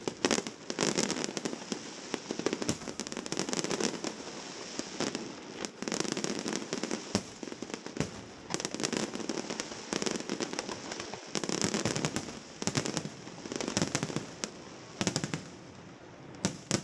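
Aerial fireworks display: shells bursting with bangs and dense crackling, coming in clusters every second or two.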